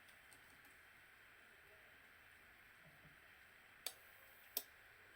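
Near silence with a faint steady hiss, broken near the end by two sharp clicks less than a second apart.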